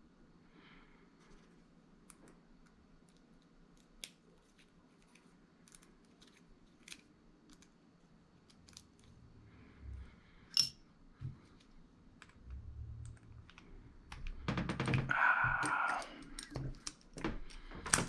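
Scattered small clicks and taps from handling an old lighter's metal parts. About three-quarters of the way through comes a short rasping burst lasting a second or two, followed by a few more sharp clicks.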